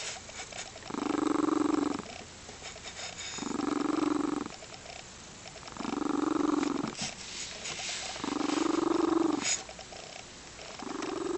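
Lynx point Siamese cat purring with a deep rumble that swells loud five times, about once every two and a half seconds, with softer purring between the swells.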